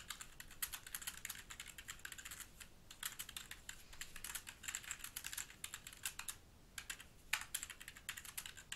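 Typing on a computer keyboard: quick, irregular key clicks with a couple of short pauses.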